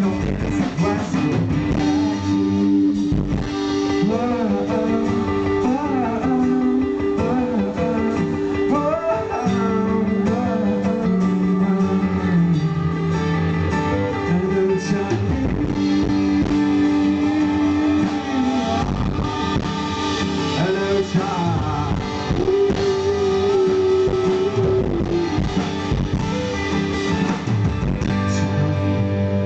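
Live rock band playing an instrumental passage of a song, with a guitar carrying a bending lead line over bass and drums. It is loud and rough-sounding, picked up right beside the PA speakers.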